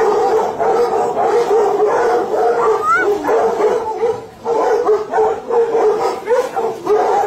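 A large pack of hunting hounds giving voice together while held back in front of their food, a continuous chorus of many overlapping dog voices, with one rising yelp about three seconds in.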